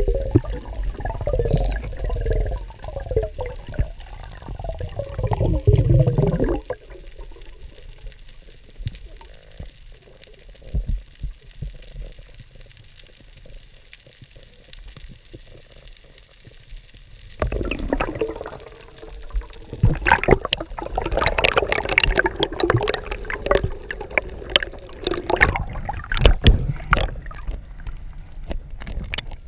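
Underwater sound of a freedive recorded by a camera in its waterproof housing. It opens with a loud rush of water and bubbling for several seconds, then goes quieter with scattered faint clicks. From a little past halfway it grows loud again with gurgling, splashing and many sharp clicks as the camera comes up and breaks the surface.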